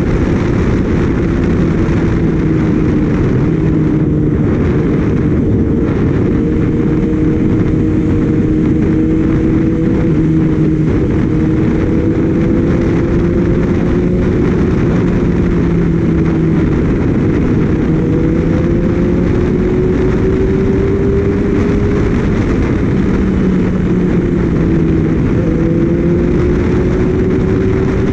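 Heavy wind noise rushing over the microphone while riding a Kawasaki Ninja ZX-6R, with the bike's inline-four engine note underneath, its pitch drifting slowly up and down with the throttle.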